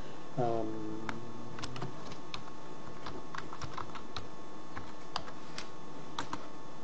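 Typing on a computer keyboard: a run of separate, irregularly spaced key clicks as a password is keyed in.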